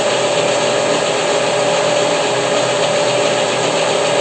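WEISAN CJM360 bench metal lathe, its motor driven by a frequency converter, running steadily with the spindle turning at about 440 rpm. It is an even mechanical hum with a constant whining tone over it.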